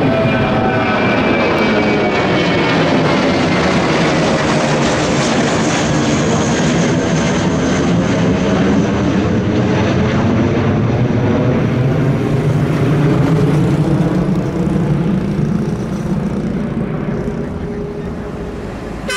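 Airbus A321 airliner's jet engines at takeoff power as it climbs out overhead and away: a loud, steady engine noise with whining tones that slide down in pitch over the first ten seconds, then growing gradually fainter over the last few seconds.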